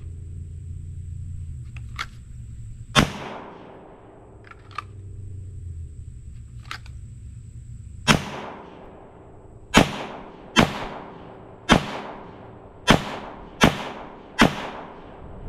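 Sig Sauer P320 Spectre Comp 9mm pistol fired eight times: a single shot about three seconds in, then seven shots in quick succession, roughly one a second.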